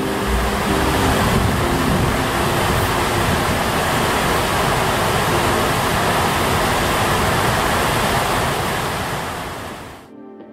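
Steady, loud rushing water, as of surf or a waterfall, with music fading out under it at the start; the water sound cuts off abruptly near the end.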